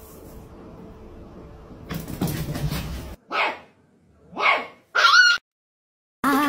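A puppy yapping: two short barks about a second apart, then a higher-pitched yip.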